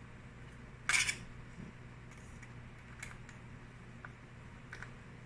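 Small clicks and scrapes of a screwdriver working the screws on a laptop's back panel, with one louder, short scrape about a second in and faint ticks after it.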